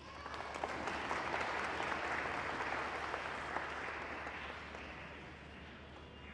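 Audience applauding at the end of a choir piece, swelling within the first second and then slowly dying away over the last few seconds.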